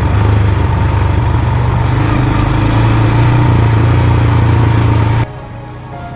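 Quad bike (ATV) engine running steadily close by, cutting off suddenly about five seconds in.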